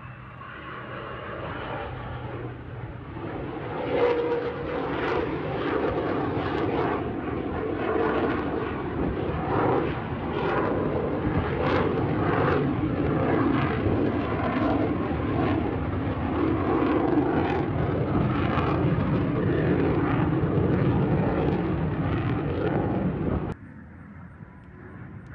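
Fighter jet flying past overhead: loud rushing jet engine noise full of crackle, building over the first few seconds and then holding steady. It drops off abruptly near the end to a much quieter jet sound.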